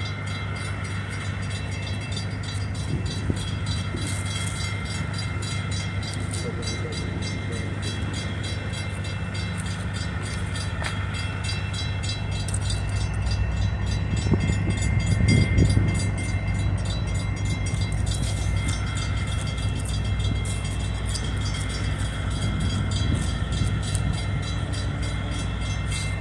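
Diesel freight locomotive engines running with a steady low drone, swelling louder for a moment about fifteen seconds in.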